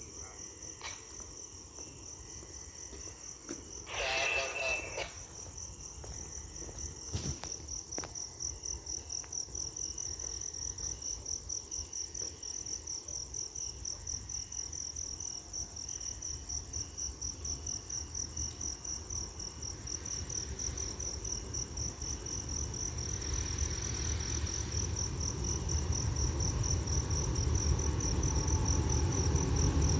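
Crickets chirping in a steady pulsing trill, joined by the low rumble of an approaching diesel locomotive that grows steadily louder over the last ten seconds.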